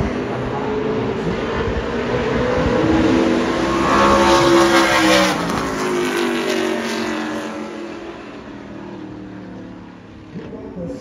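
A NASCAR pickup race truck's V8 engine passes at speed on the oval. The engine note climbs as it approaches and is loudest about four to five seconds in, then drops in pitch and fades as the truck goes away.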